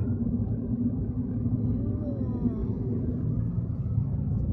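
Steady low rumble of a car driving along a road: engine and tyre noise heard from inside the cabin.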